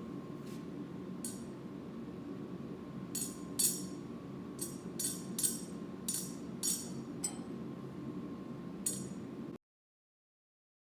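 Hammer tapping on steel: about eleven sharp, ringing metallic clinks at an uneven pace over a steady low hum. The sound cuts off abruptly into silence near the end.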